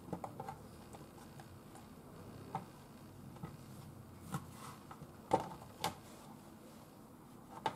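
Kitchen knife cutting small chunks of potato on a wooden cutting board: a few scattered, sharp taps of the blade against the board, the loudest a little past the middle.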